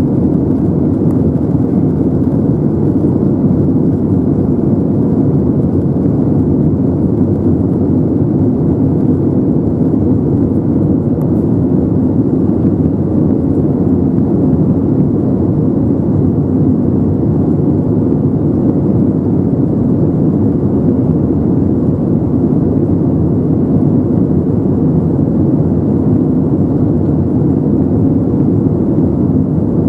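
Steady cabin noise inside an Airbus A321neo in flight: its Pratt & Whitney PW1100G geared turbofan engines and the airflow make an even low rush, with a faint steady hum.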